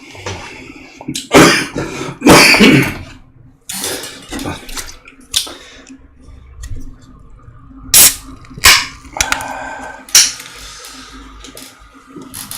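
Kitchen handling noises: a series of separate clatters and knocks of pots and dishes, with some water splashing. The loudest come about a second and a half and two seconds in, then twice around eight seconds and once about ten seconds in.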